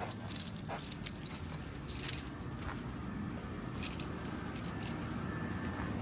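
A bunch of keys jangling as they are handled, in short clusters of jingles, the loudest about two seconds in and more around four seconds.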